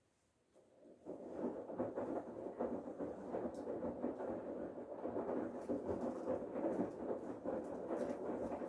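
Bosch Serie 8 washing machine drum turning during the main wash, the wet laundry and water sloshing and tumbling inside. It starts about a second in after a pause between drum turns.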